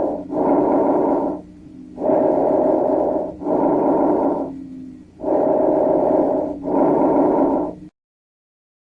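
Auscultated breath sounds: three breaths, each a loud rush of air in and then out, about three seconds apart. The recording cuts off suddenly near the end.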